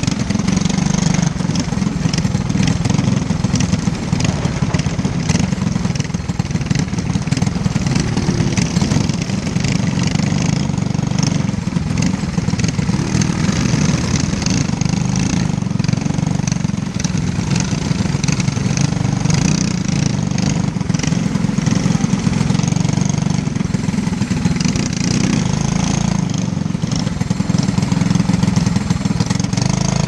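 Briggs & Stratton LO206 kart engine, a single-cylinder four-stroke, running steadily close to the microphone with no big revs.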